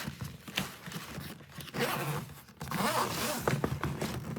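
Zippers on a Stanley FatMax fabric tool bag being pulled along by hand: a few zip strokes, the longest two about a second and a half in and about three seconds in.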